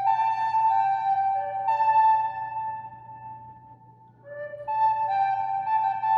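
Recorder playing a slow melody of held notes. The phrase dies away about three seconds in, and a new phrase begins about a second later.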